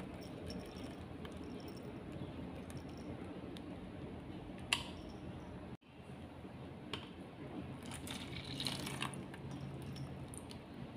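Faint pouring of a thick blended prawn-shell mixture from a blender jug into a plastic bowl, with small ticks and one sharp click about halfway through.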